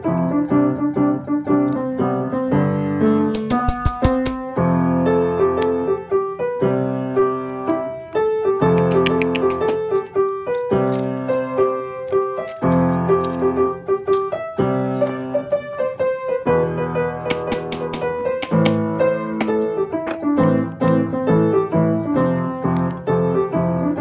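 Background piano music.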